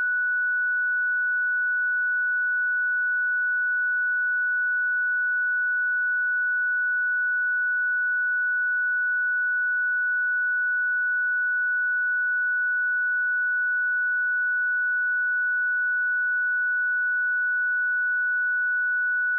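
A pure 1477 Hz sine-wave test tone, held steady at constant pitch and level.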